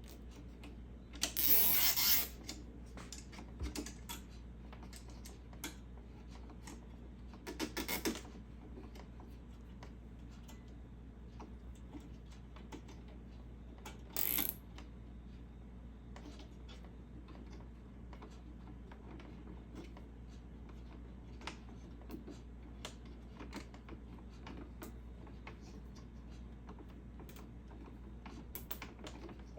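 Nylon zip ties being ratcheted tight around the rubber water-line tubes on a Keurig coffee maker's valve, three rasping zips (the first about a second in and the longest, another near 8 s, a short one near 14 s), among small clicks of plastic parts being handled.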